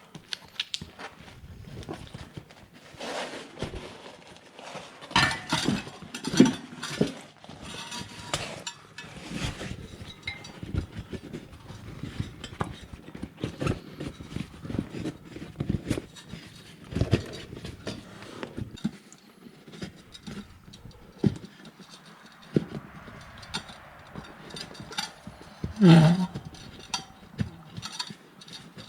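Hands working a rubber inner tube into a motorcycle tire on its rim: scattered rubbing and rustling with clinks and knocks. There is one louder bump near the end.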